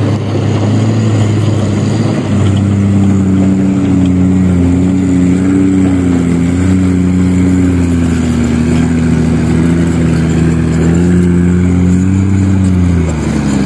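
Overloaded Mitsubishi Fuso dump truck's diesel engine labouring steadily as it pulls a heavy load of soil across soft dirt. Its pitch wavers slightly and drops near the end.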